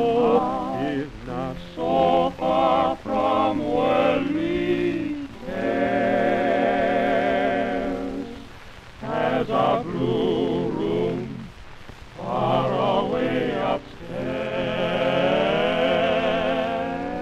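Male vocal quartet (two tenors, baritone and bass) singing close harmony with piano on a 1926 Victor electrical 78 rpm recording, in short phrases and long held chords with vibrato about six seconds in and again from about fourteen seconds. Faint surface noise of the shellac disc runs underneath.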